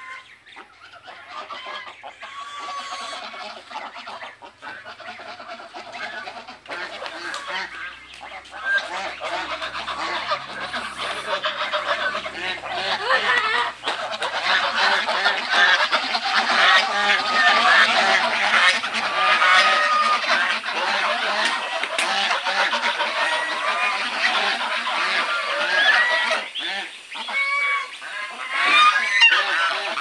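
A flock of domestic geese honking, many calls overlapping, growing louder over the first half.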